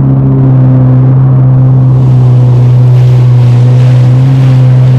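Jet ski engine running at a steady speed, a loud, even drone.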